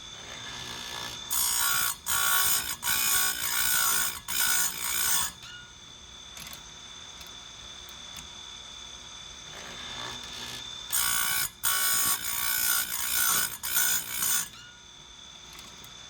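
Electric saw-chain grinder running with a steady high whine. Twice its grinding wheel is brought down onto the chain's cutter teeth, each time in a run of about five short, harsh grinding bursts lasting about four seconds.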